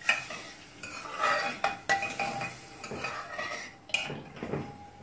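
Metal ladle stirring milk and vermicelli in a metal saucepan, scraping round the pan and knocking against its sides with several ringing clinks. The first clink, right at the start, is the loudest.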